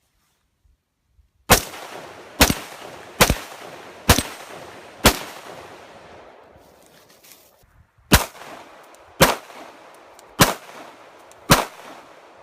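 Nine shots from a semi-automatic firearm in two strings, five at roughly one a second, a short pause, then four more.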